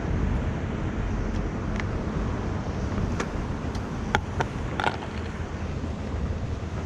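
Steady low outdoor background noise, with a few light clicks and taps about three to five seconds in.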